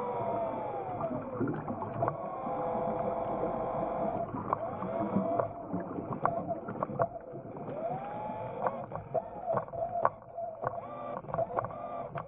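Electric thrusters of an underwater ROV whining, their pitch gliding up and down as the motors speed up and slow down, with scattered sharp clicks that get more frequent near the end.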